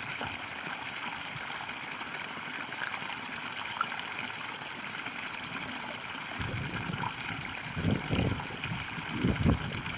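Spring water trickling and splashing steadily. Low rumbling surges come in over the last few seconds.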